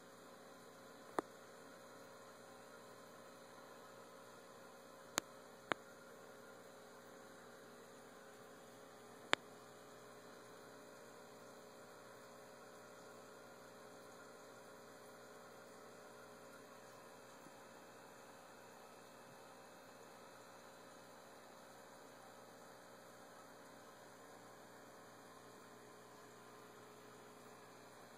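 Faint steady electrical hum with four short, sharp clicks in the first ten seconds, two of them close together.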